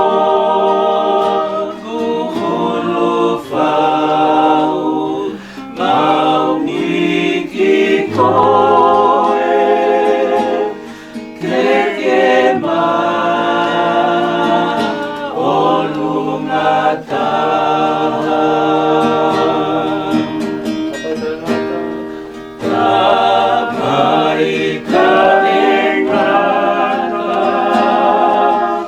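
A group of voices singing a slow worship hymn in harmony, with long held notes and vibrato, over light instrumental accompaniment.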